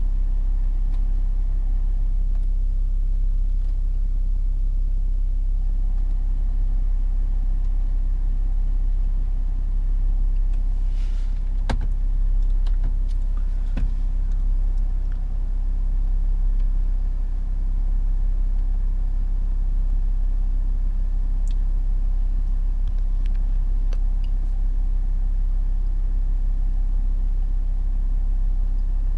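Jaguar F-Pace 30d's 3.0-litre V6 diesel running steadily, a low hum heard inside the cabin. A couple of soft clicks come about halfway through, from fingers pressing the touchscreen and console buttons.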